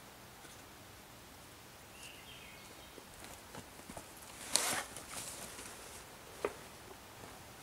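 Footsteps on the forest floor, with a loud crunch about four and a half seconds in and a sharp snap about two seconds later, over quiet outdoor background.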